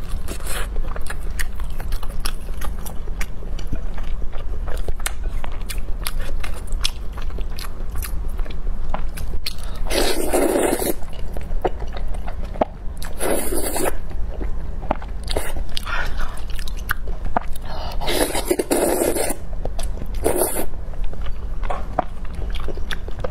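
Close-miked mukbang eating: steady chewing and biting with many small wet clicks, and four louder noisy bursts of about a second each, the biggest about ten and eighteen seconds in.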